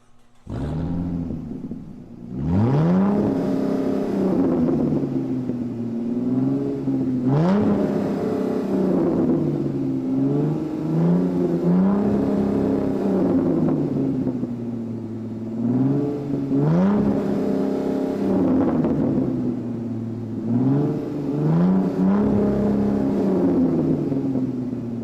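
Car engine revving again and again, about five times: each time the pitch climbs quickly, then falls back.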